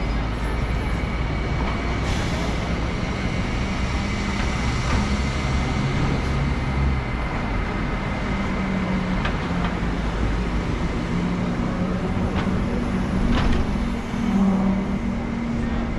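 Busy city street traffic: a steady rumble of engines, with a red double-decker bus's engine running close by and a little louder in the last few seconds.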